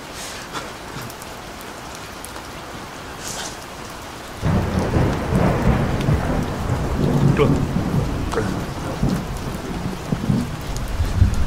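Rain falling steadily. About four seconds in, a loud low rumble starts suddenly and carries on under the rain.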